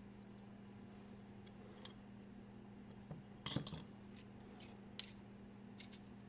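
Small metal parts of a folding knife and the tools handled with them clinking and tapping during reassembly: a few light metallic clicks, the loudest a quick cluster about halfway through, with another about five seconds in. A steady low hum runs underneath.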